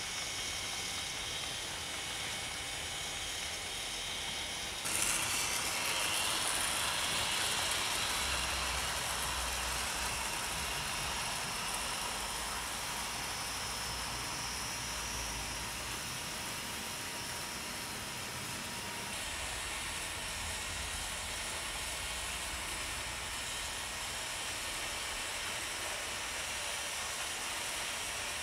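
Hornby OO gauge 14xx model tank engine and its coaches running along the layout track: a steady whirring hiss of the small motor and wheels on rail, louder from about five seconds in.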